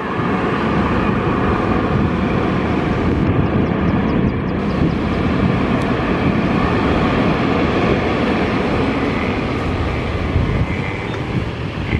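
Boeing 737 jet engines running steadily as the airliner rolls slowly along the runway after landing: a continuous rumble and roar with a faint steady whine.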